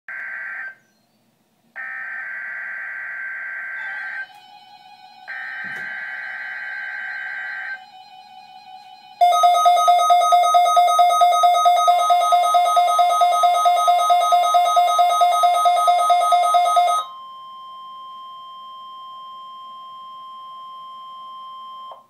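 NOAA Weather Radio weekly test signal on weather radio receivers: three harsh, buzzing SAME data bursts with short gaps. Then loud alert beeping, about three or four beeps a second for about eight seconds, over a steady warning alarm tone that carries on alone at a lower level after the beeping stops.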